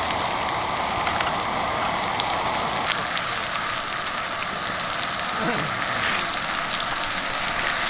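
Strips of pork belly sizzling steadily on a round black griddle pan over a portable gas burner.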